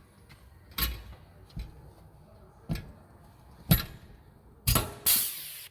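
Rivet gun setting aluminium rivets into a bracket on a vehicle's body: sharp clicks about a second apart, then a louder, longer noisy burst near the end that stops suddenly.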